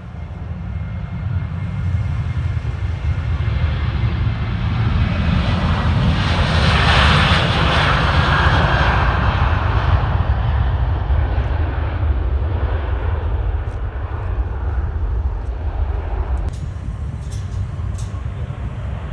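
Boeing 737-800 jet airliner passing, the noise of its CFM56 turbofans swelling to a peak about seven seconds in and then fading. A few sharp clicks come near the end.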